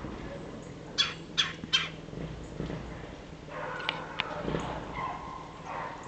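A bird calling three times in quick succession about a second in, short harsh notes; a couple of faint sharp clicks follow near the middle.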